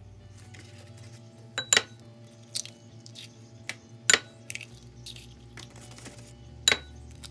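Eggs knocked and cracked against the rim of a glass mixing bowl: three sharp clinks about two and a half seconds apart, with a few lighter taps between them, over soft background music.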